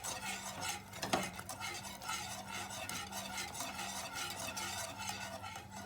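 A utensil stirring thick lemon custard in a pot, with quick repeated scrapes against the pot as a spoonful of butter is mixed in. A steady low hum runs underneath.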